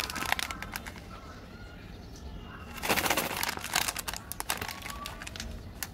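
Plastic snack packets crinkling and crackling as they are handled, with a louder rustle about three seconds in. Birds chirp faintly in the background.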